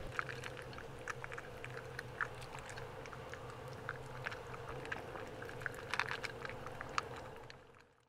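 Faint scattered clicks and soft rustles from dogs settling into a car bed, over a steady low hum; the sound fades out near the end.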